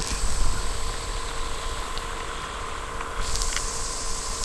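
River water running over a shallow, rocky riffle, with wind buffeting the microphone as a low, uneven rumble. A faint steady tone runs underneath.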